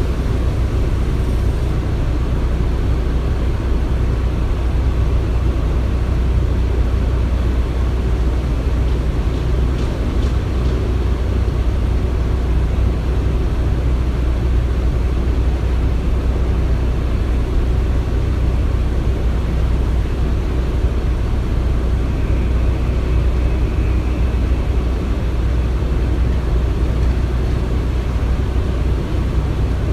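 Construction-site ambience: a steady, deep machinery rumble with no breaks, and a faint high whine for a few seconds about two-thirds of the way through.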